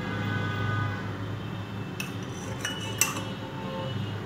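A metal spoon clinks twice against metal utensils, about a second apart, as ghee is spooned into an aluminium cake tin.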